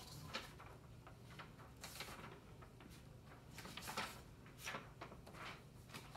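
Faint, scattered rustles and soft ticks of sheets of paper being handled, a handful of short rustles spread over a few seconds, over a low room hum.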